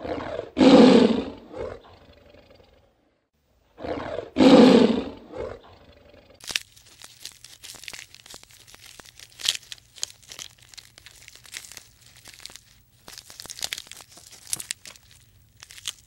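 A tiger roars twice, a few seconds apart. Then a giraffe pulls and chews hay from a raised feeder, a long run of crackling, crunching clicks.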